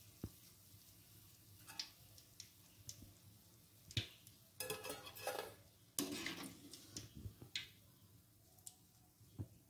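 A wire-mesh frying skimmer clinking and knocking against an aluminium kadai and bowl as fried cauliflower is scooped out of the oil: scattered single knocks, with two short rattling clatters about halfway through.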